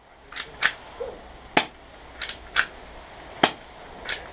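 Airsoft gunfire: seven sharp cracks at uneven intervals, some in quick pairs.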